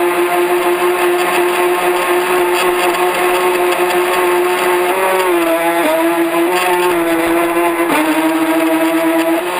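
A radio-controlled boat's motor running at a steady high pitch over a hiss, picked up on board. Its pitch dips briefly about five seconds in, again a second later and once more near the end.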